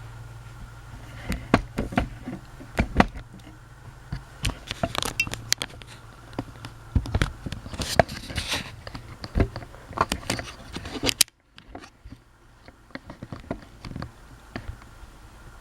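Casablanca Delta 2 ceiling fan running with a low hum, over many irregular sharp clicks and knocks. The hum cuts off abruptly about eleven seconds in, and the clicks carry on after it.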